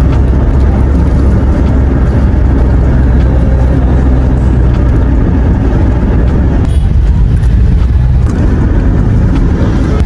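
Car cabin noise while driving: a loud, steady low rumble.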